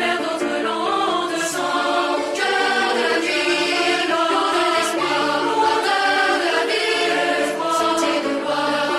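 Choral music: several voices singing held chords that shift from one to the next every second or so.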